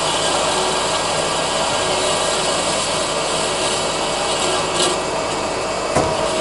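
Cosen double column horizontal bandsaw blade cutting through a block of wood during its automatic cycle, a steady rasping saw noise. A short knock about six seconds in.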